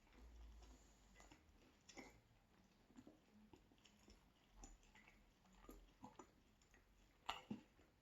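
Quiet chewing of a mouthful of pizza, with soft crunches and mouth clicks scattered through. A sharper, louder crunch or click comes about seven seconds in.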